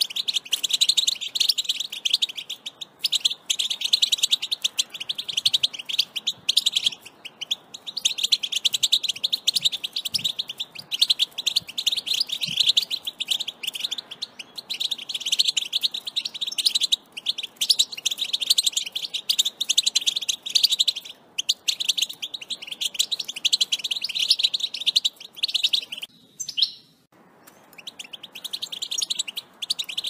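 European goldfinch singing: a fast, dense twittering song in runs of a few seconds with short breaks, and a longer pause about 26 seconds in.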